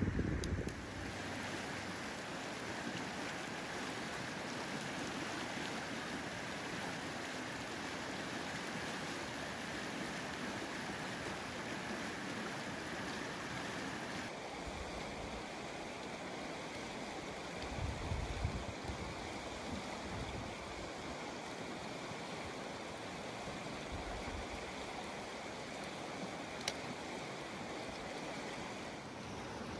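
Steady rushing of the fast Klutina River, a continuous even wash of water noise, with a brief low rumble about 18 seconds in.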